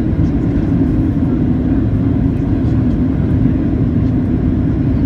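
Steady low cabin drone of a Boeing 737-700 in flight, heard from a seat over the wing: its CFM56-7B turbofans and the rushing airflow blend into an unbroken rumble.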